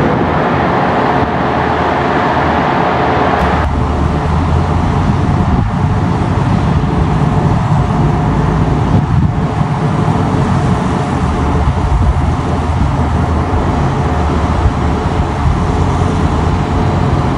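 Anchor-handling work boat's engine and crane machinery running with a steady low rumble; the sound shifts abruptly about three and a half seconds in.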